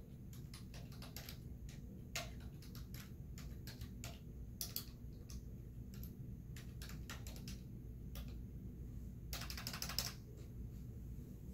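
Typing on a computer keyboard: irregular key clicks, with a quick run of keystrokes near the end, over a low steady hum.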